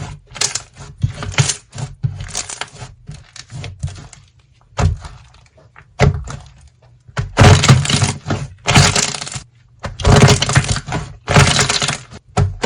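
Slime being squeezed and pressed, giving crisp crackling, crunching sounds in repeated bursts, thinner in the middle and thickest in the second half.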